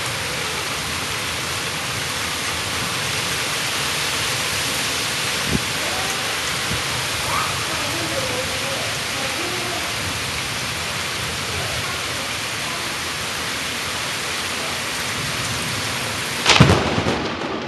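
Heavy rain pouring steadily, then near the end a single sharp, loud thunderclap from a close lightning strike.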